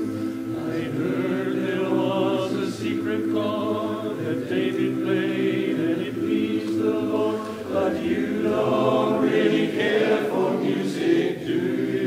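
Men's choir singing in harmony, a sequence of held chords that shift every second or two.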